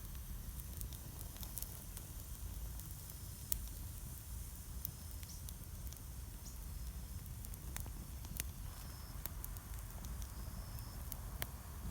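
Wood fire burning in a fire pit, crackling with irregular sharp pops and snaps over a low steady rumble.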